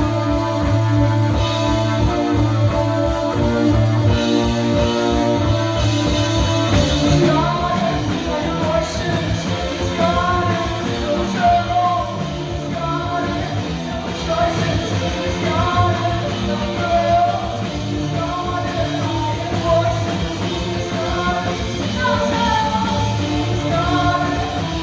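Live rock band playing loudly with singing. Held chords over a fast, steady drum beat give way, about seven seconds in, to a repeated rising-and-falling melodic line over the beat.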